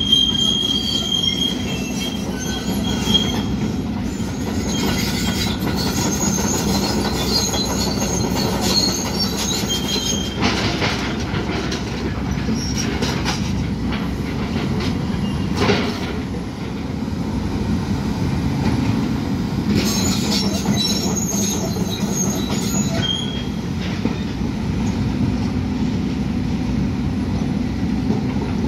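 Demolition excavator at work: a steady low engine rumble with stretches of high metallic squealing and scraping and a few sharp knocks of debris.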